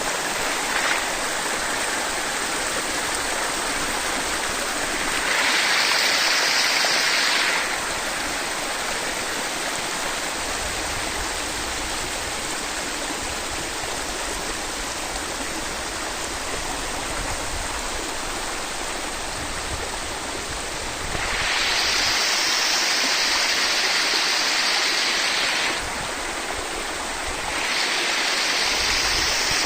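Spring water running steadily in a mountain stream, a constant rushing hiss. It grows louder and hissier for a few seconds about five seconds in, and again for most of the last nine seconds.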